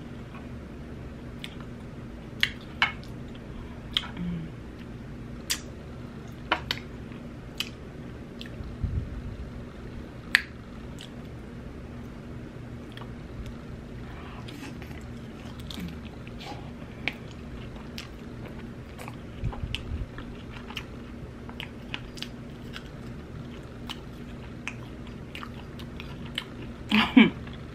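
Close-miked chewing and biting on sauced barbecue pork ribs: wet lip smacks and sharp mouth clicks, scattered irregularly. A steady low hum runs underneath.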